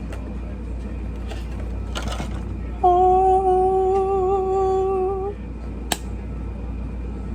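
A person humming one held, slightly wavering note for about two and a half seconds, followed about a second later by a single sharp click.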